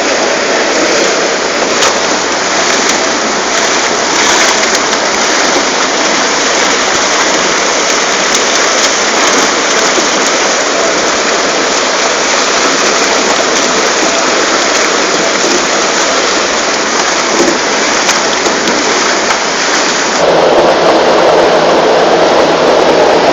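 Cassava root washer running: a loud, steady rush of spraying water and tumbling roots. About twenty seconds in the noise turns deeper and fuller.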